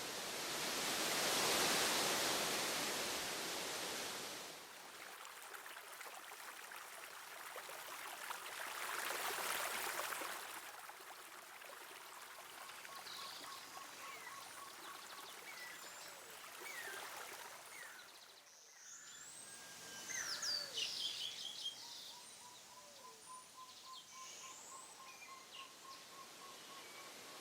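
Rushing water noise from a waterfall, swelling loud twice in the first ten seconds. After that, over a softer steady rush, birds call and chirp, with a rapid pulsed trill repeated twice.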